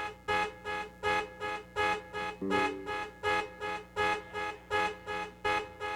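Car horn honking over and over in a steady rhythm, about three honks a second, alternating longer and shorter honks: a car alarm going off.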